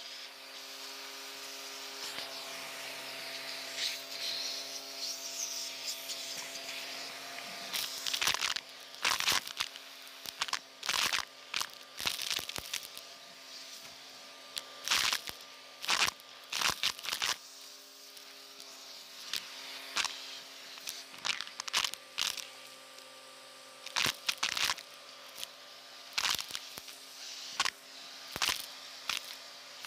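Vacuum cleaner running with a crevice tool, a steady motor hum, sucking up a pile of dirt mixed with buttons and beads. From about eight seconds in, sharp crackles and clatters come in quick clusters as the debris rattles up the nozzle.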